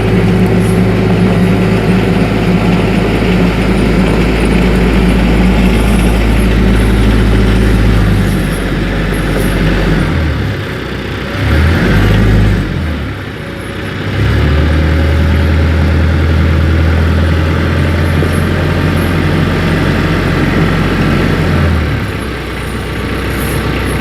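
TYM 474 compact tractor's diesel engine running as it drives. The engine note drops and shifts for several seconds in the middle, runs steady again, then eases off near the end.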